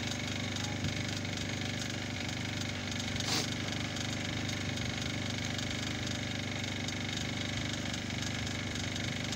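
Small engine running steadily, with a single brief knock about three seconds in.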